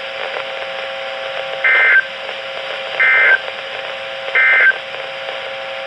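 NOAA Weather Radio EAS end-of-message (EOM) tones: three short bursts of two-tone digital data screech, about 1.3 seconds apart, marking the end of the alert broadcast. A steady hum runs underneath.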